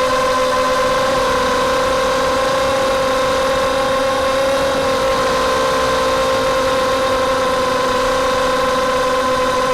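Mini racing quadcopter's four brushless motors (2204 2300KV) spinning 5-inch propellers: a steady, buzzing whine that dips a little in pitch about halfway through, then comes back up.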